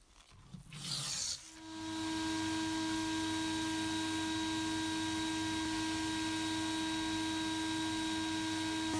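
An electric machine is switched on about a second and a half in. It spins up within half a second and then runs at a steady speed with an even hum and hiss.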